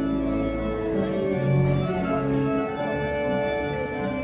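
Church organ playing sustained chords over a moving bass line, the notes changing every half second or so.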